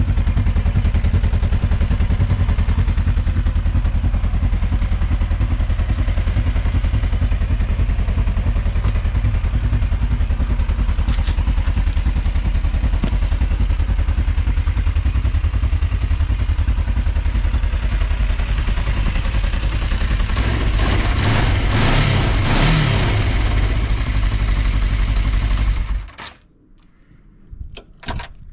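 2009 Kawasaki EN500's liquid-cooled parallel-twin engine idling steadily, rising briefly a few seconds before it cuts off suddenly near the end as it is switched off, leaving a few small clicks.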